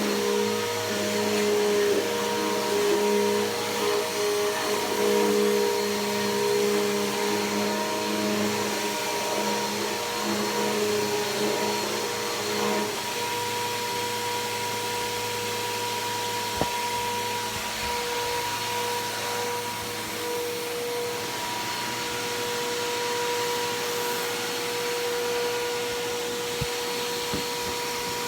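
Bissell PowerForce Helix Turbo upright vacuum cleaner running steadily, its motor tone shifting in pitch about halfway through, with a few light clicks near the end.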